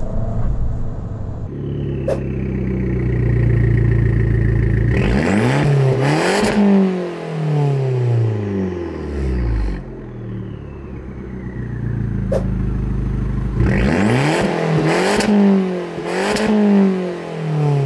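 Abarth 595 Competizione's 1.4-litre turbocharged four-cylinder heard through its Monza valved exhaust, idling and revved at a standstill: one sharp rev rising and falling about a third of the way in, then several quick blips near the end. A sharp crack sounds twice.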